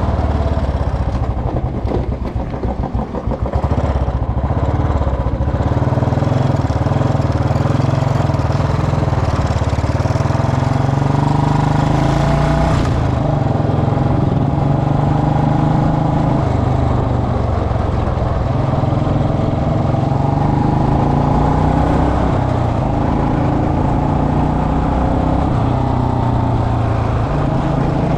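Royal Enfield Bullet Electra's single-cylinder engine running while the motorcycle is ridden; the note dips and changes about two to four seconds in, then holds steady with slow small rises and falls in pitch.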